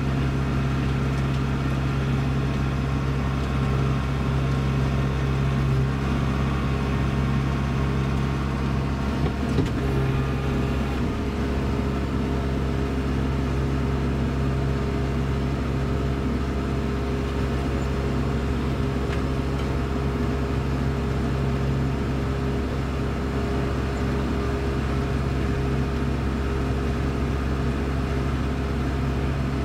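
Kubota Grand L4760 tractor's diesel engine running steadily with its PTO-driven front snowblower spinning and throwing snow, heard from inside the closed cab. A couple of light knocks come about ten seconds in.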